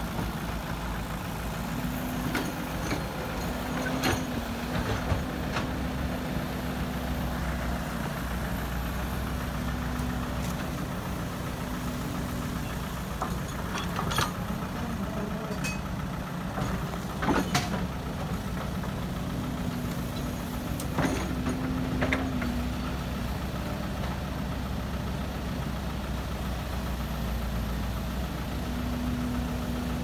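Diesel hydraulic excavator running steadily while it loads a dump truck, its engine drone coming and going as the hydraulics work. A few sharp knocks and clanks come from the bucket and dirt dropping into the steel truck bed.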